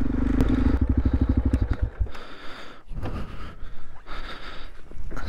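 Yamaha XT660Z Ténéré's single-cylinder engine running at a low idle, its beats spreading out as it is switched off about two seconds in, followed by a softer hiss and rustle.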